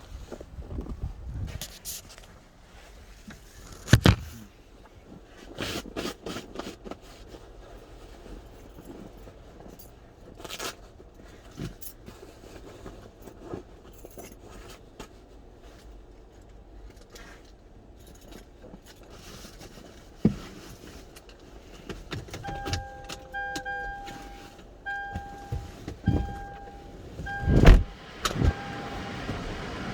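Keys jangling and the clicks and knocks of handling a 2004 Lexus GX 470's door and ignition, with a loud thump about four seconds in and another near the end. From about three-quarters of the way through, an electronic chime beeps about once a second.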